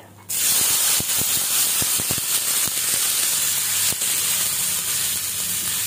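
Chopped cluster beans dropped into hot oil in a kadhai: a loud sizzle starts suddenly about a quarter second in and runs on steadily, with scattered crackling pops.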